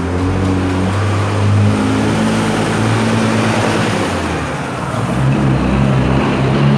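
Car engine running and revving, with road and mechanical noise.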